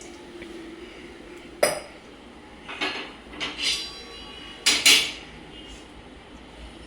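Dishes and utensils being handled: a series of sharp clinks and knocks, some ringing briefly, the loudest two close together about five seconds in.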